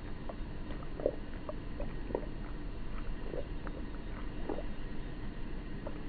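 Cat lapping milk from a metal bowl, the sound slowed five times, so each lap is drawn out and comes about once a second over steady background noise.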